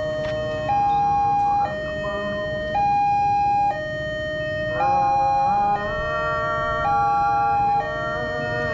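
Railway level-crossing warning siren sounding its two-tone alarm, switching between a higher and a lower tone about once a second, the signal that a train is approaching the crossing.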